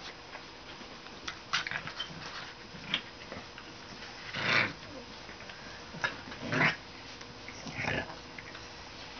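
Pit bull and shar pei puppies play-fighting: a handful of short growls and yaps, the longest and loudest about halfway through, with two more in quick succession a little later.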